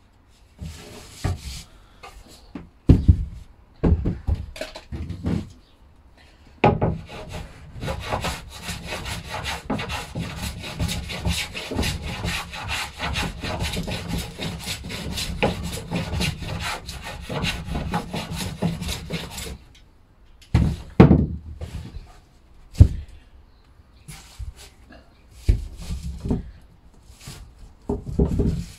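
Several sharp knocks on wood, then about thirteen seconds of rapid back-and-forth strokes of a hand tool scraping across a pine board, followed by more scattered knocks.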